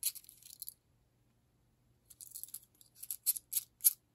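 Small metal parts of a vintage trench lighter clicking and rattling as it is handled. A short burst of light scraping clicks comes at the start, then after a pause a run of sharper clicks, about four of them roughly a third of a second apart, in the last two seconds.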